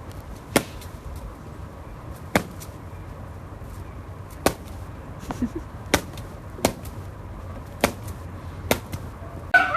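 A series of about seven sharp clicks or taps, spaced irregularly a second or two apart, over a low steady background, with a short pitched call or voice right at the end.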